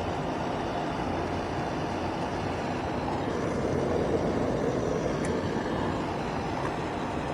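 Newly replaced HVAC blower motor of a 2017 GMC Terrain running with the AC on: a steady rush of fan air with no bearing roar.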